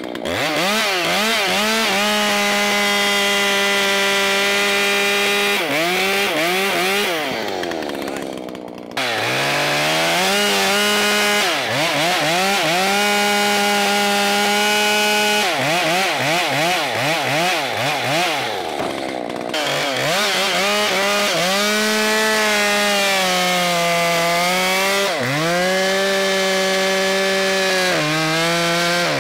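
Two-stroke chainsaw running at high revs while cutting wood, its engine pitch wavering and sagging under load. About eight seconds in and again around nineteen seconds the throttle drops off almost to idle, then the saw revs straight back up into the cut.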